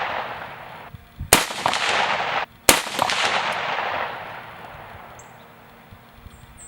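Two rifle shots about 1.3 seconds apart, each a sharp crack followed by a long rolling echo that fades over a couple of seconds.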